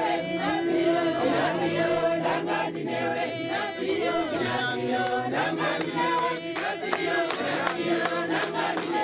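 A congregation of men and women singing a hymn together without instruments, many voices holding long notes in harmony. Short sharp clicks join in from about halfway through.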